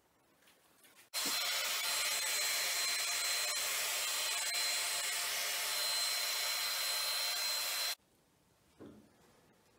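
Hot air gun running over freshly poured epoxy resin to pop its bubbles: a steady rush of blown air with a thin high whine. It starts about a second in and stops abruptly near the end.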